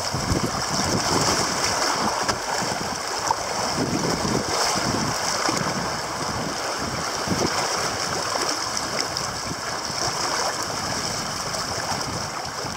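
Fast, choppy river current rushing and splashing against a kayak's hull as the kayak rides the outflow through an estuary mouth towards the sea.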